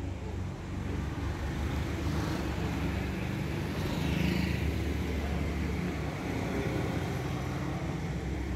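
Steady low outdoor rumble, with a faint sound sliding down in pitch about four seconds in.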